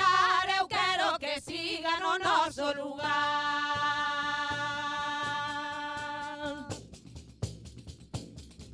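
Women's voices singing a Galician traditional song: a moving melody, then one long held note from about three seconds in that stops about two seconds before the end. After it, light scattered taps from a pandeireta tambourine and a scallop shell.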